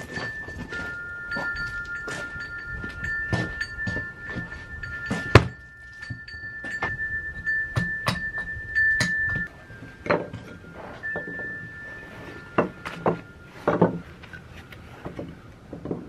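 Irregular sharp knocks of a hatchet striking sticks on a log chopping block, the loudest about five seconds in and a cluster of blows near the end. Behind them, a chime-like ringing holds two steady high notes; the upper note drops out for a moment past the middle.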